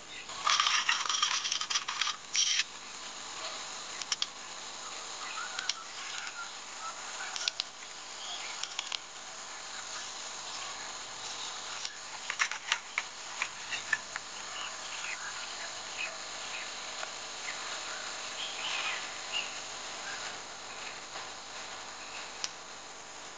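Insects chirring steadily in a grassy field. About half a second in there is a loud burst of rustling lasting a couple of seconds, and sharp clicks and knocks come and go after it.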